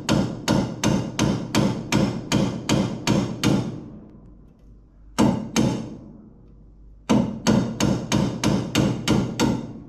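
Hammer blows on steel, pounding at a seized, rust-bound suspension bolt. There is a steady run of strikes about three a second, then a pause, two blows about five seconds in, and another run of strikes near the end.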